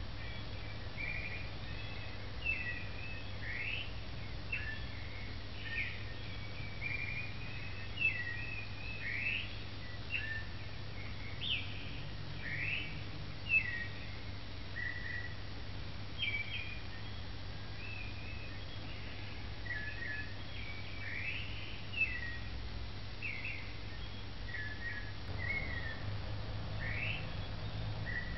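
Birds chirping: many short whistled calls and quick rising notes in a busy run, over a steady low hum.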